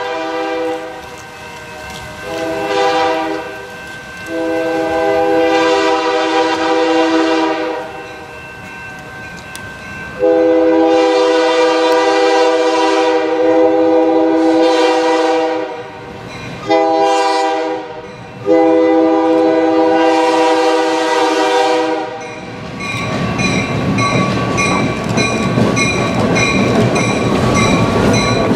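Diesel locomotive's air horn, several notes sounding together, blowing a series of blasts as the train approaches. The last four go long, long, short, long, the grade-crossing signal. Then the locomotive's engine and the clicking of its wheels grow close as it rolls into the station.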